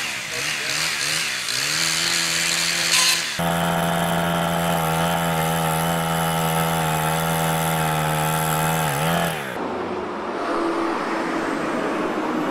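Two-stroke chainsaws idling and being revved up and down. About three seconds in, a chainsaw is held at a steady high rev for about six seconds. Near the end it gives way to road traffic: vehicles driving past on a street.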